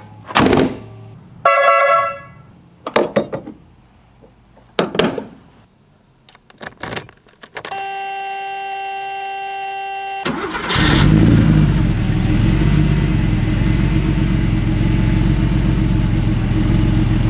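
A few knocks and clunks and a short chime-like tone, then a steady buzzer for about two and a half seconds. The 1986 Porsche 911 Turbo's air-cooled, turbocharged flat-six then starts about ten seconds in, flares briefly and settles into a steady idle.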